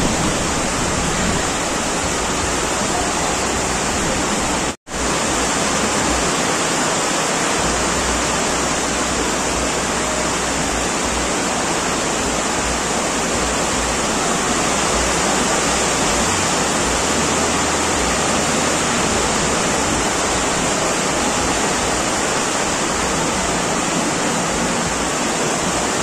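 Heavy downpour: a steady, dense rush of rain falling, with water pouring off the roof edges. It cuts out for an instant about five seconds in.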